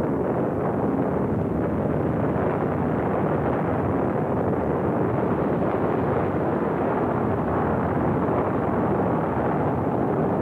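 Saturn IB rocket's eight H-1 first-stage engines at liftoff: a loud, steady, unbroken rumble that holds the same level throughout.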